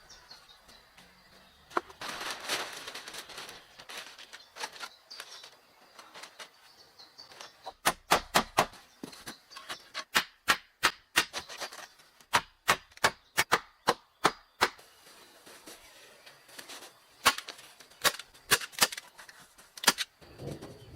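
Repeated sharp knocks in quick runs of several strikes at a time, typical of hand-tool work such as hammering or chopping. About two seconds in, a second and a half of scraping, rustling noise.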